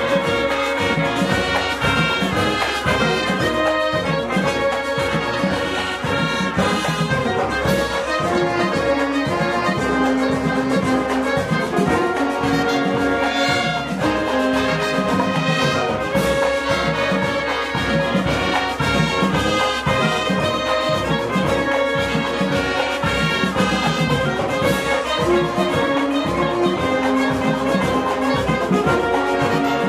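School marching band playing live: brass (trumpets, trombones and sousaphones) over a steady beat.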